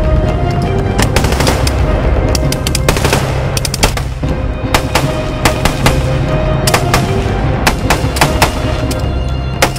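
Rifle and machine-gun fire in irregular bursts and strings of rapid shots, over background music with steady low notes.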